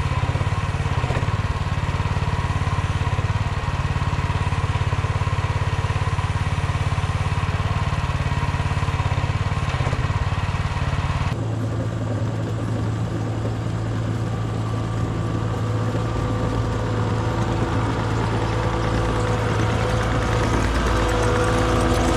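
Micro excavator's small engine running steadily. About halfway through, the sound cuts to a lower, more evenly pitched engine hum that grows louder near the end.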